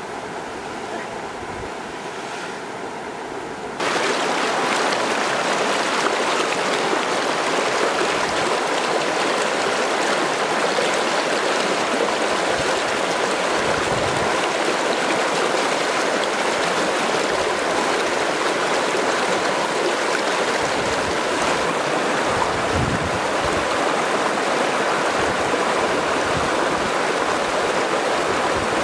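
Steady rush of flowing stream water. It is quieter for the first few seconds, then jumps louder about four seconds in and stays even.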